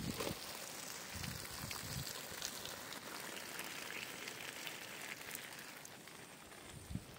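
Light rain falling on leafy garden plants and wet soil: a steady hiss with scattered drop ticks, and a few soft low thumps.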